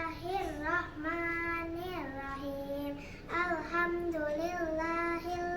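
A young girl singing an Arabic prayer in a sing-song chant, with held notes in two phrases and a short break about three seconds in.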